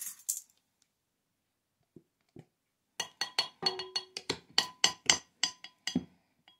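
A metal spoon tapping quickly on the rim of a white ceramic casserole dish, about fifteen ringing clinks in three seconds starting about three seconds in, knocking Dijon mustard off the spoon into melted butter.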